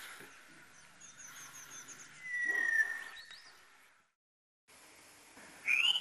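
White-winged chough giving a clear whistle that glides slightly downward, preceded by a quick row of thin high notes. The sound drops out briefly after about four seconds, and a short rising bird call follows near the end.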